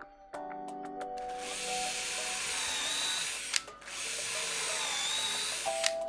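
Cordless drill boring into a small wooden block, in two stretches of about two seconds each with a brief stop between them: two holes drilled for dowels.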